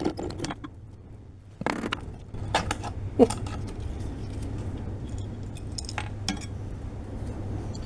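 Scattered metallic clinks and knocks, several separate strikes a second or more apart, as steel parts and tools are handled, over a low steady hum.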